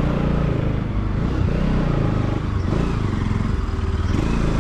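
Motor vehicle engine running on the move, its pitch rising and falling as the throttle changes, over road noise.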